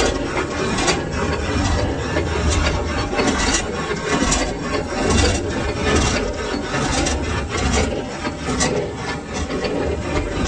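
Metal lathe running with a low steady hum, while a tool scrapes the turning workpiece in rough, irregular strokes.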